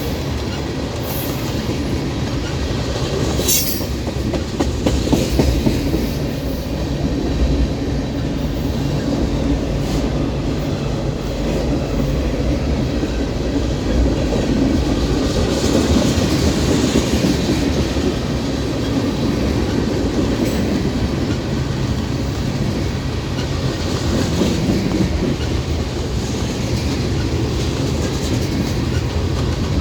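Freight train cars rolling steadily past a grade crossing, steel wheels running on the rails, with a few sharp clicks and clanks, one of the loudest about three and a half seconds in.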